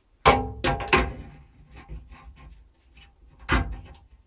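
Hand tools, pliers and a spanner, clattering as they are picked up and handled: a sharp clank with a short ring about a third of a second in, a few more clinks over the next second, faint ticks, and another sharp knock about three and a half seconds in.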